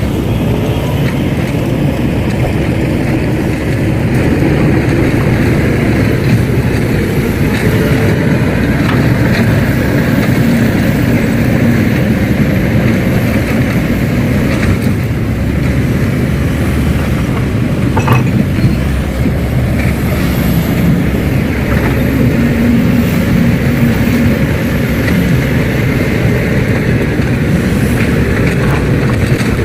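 Radio-controlled construction models' motors running, a steady mechanical drone with an occasional knock.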